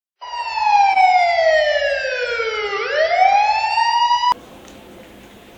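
Electronic police siren sound: one slow wail that falls in pitch for a couple of seconds, swings back up, then cuts off suddenly about four seconds in. A few faint clicks follow.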